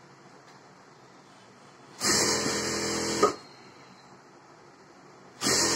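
Electric sewing machine running in two short stitching runs, the first about two seconds in and lasting a little over a second, the second near the end and shorter; each starts suddenly and ends with a short click as the machine stops.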